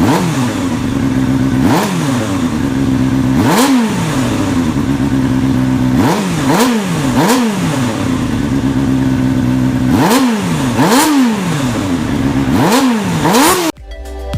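Kawasaki Ninja ZX-25R's 250 cc inline-four engine idling and being blipped with the throttle: about ten quick revs that shoot up and drop straight back, some singly and some in quick pairs or triples. The sound cuts off abruptly near the end.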